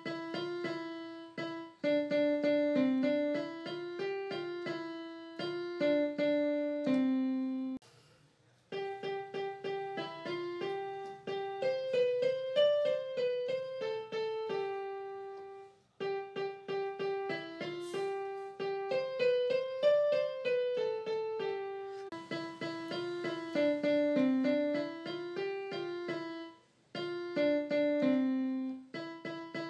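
Background keyboard music: a light melody of short, decaying notes, with brief pauses about eight, sixteen and twenty-seven seconds in.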